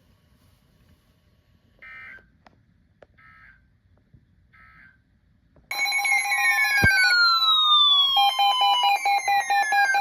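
Three short data bursts about a second apart from an Emergency Alert System receiver: the end-of-message code that closes a warning. About six seconds in, a loud layered alert tone starts, steady alarm tones with several falling whistles over them, as the next warning comes in.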